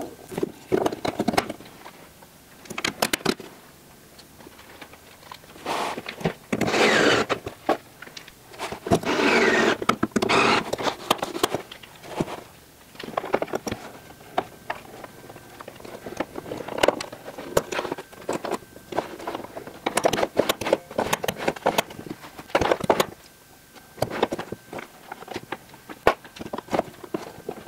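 Metal parts of a flush door handle mechanism clicking and knocking as the handle and its latch racks are fitted into the gear in a fiberglass aircraft door, with two longer scraping passages about six and nine seconds in.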